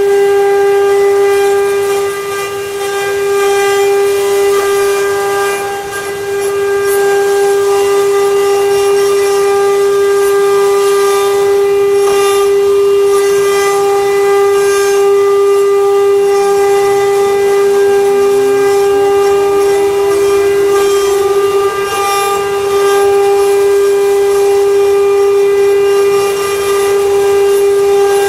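CNC wood-carving router's spindle motor running with a steady high whine, with the scratchy crackle of the cutter in wood. A second, lower tone rises in pitch about two-thirds of the way through.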